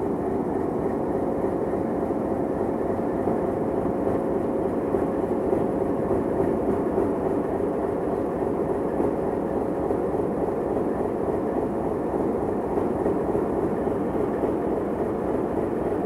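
Alco RSD-16 diesel-electric locomotive's V16 diesel engine idling steadily with a low, even purr. A faint steady whine rides over it and fades out about halfway through.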